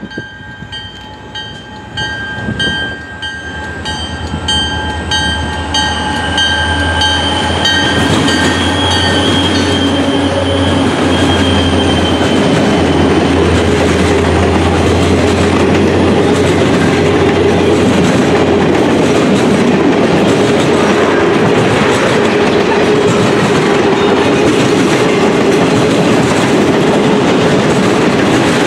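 CP diesel locomotives approach and run past with a low engine rumble, growing louder over the first several seconds. A work train of freight cars and boarding (bunk) cars follows, rolling steadily by with wheel-on-rail noise. A repeating high ringing tone is heard during the first ten seconds and fades out.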